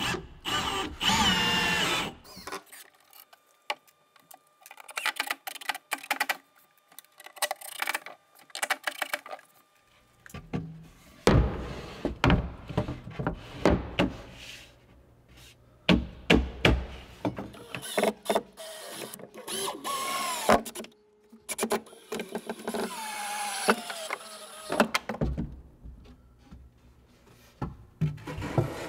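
Cordless drill driving screws into plywood in short runs, the first one rising in pitch as it spins up. Between runs there are knocks and clatter of plywood panels being handled and fitted.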